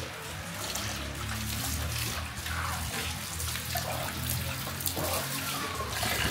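Water running and splashing continuously, with background music underneath.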